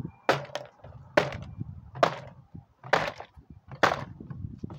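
Sledgehammer blows on a plastic toy truck inside a plastic trash can: five sharp whacks about a second apart, each with a short ring.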